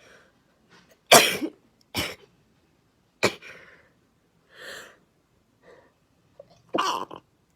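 A girl sneezing repeatedly: four sharp bursts, the first about a second in the loudest, with softer breaths between them.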